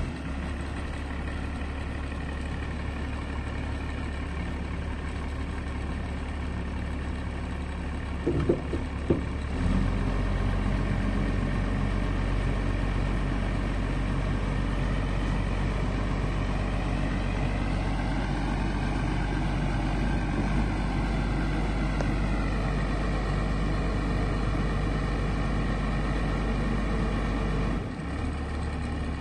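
Diesel engine of a Huddig 960 backhoe loader running steadily just after start-up. A few clunks come about a third of the way in, then the engine speed steps up and holds, dropping back near the end.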